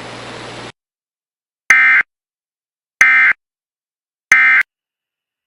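Emergency Alert System end-of-message signal: three short digital data bursts, evenly spaced about 1.3 seconds apart, marking the end of the alert. Before them, a short stretch of broadcast hiss cuts off to silence.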